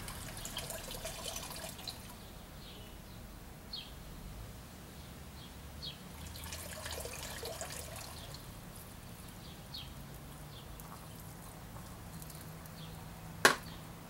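Quiet outdoor background with faint rustling and a few short high chirps, then one sharp knock near the end as a plastic ice-cream bucket is set down on the pavement.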